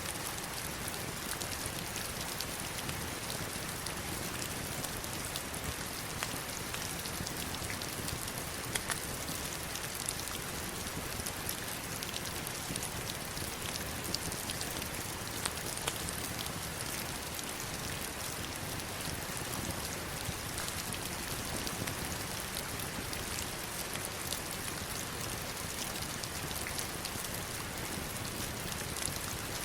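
Heavy rain falling steadily on stones and river water: a dense, even hiss with many sharp individual drop hits.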